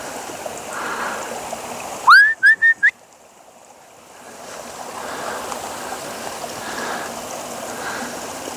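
Shallow woodland stream running steadily over stones. About two seconds in, a loud human whistle, one rising note followed by three short notes, cuts across it; the water sound dips for a second or so afterwards and builds back.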